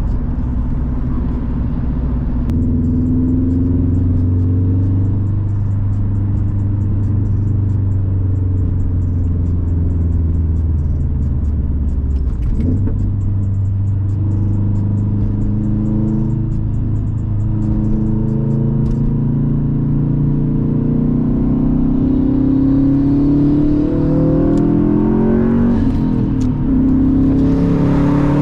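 Subaru WRX's turbocharged 2.5-litre flat-four engine running while the car is driven. The revs hold steady at first, then climb in rising sweeps over several seconds in the second half as the car accelerates.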